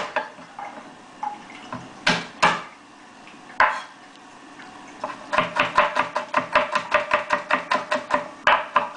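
Kitchen utensils knocking: a few separate clinks, then about halfway through a quick, even clatter of roughly five strokes a second with a faint ring under it.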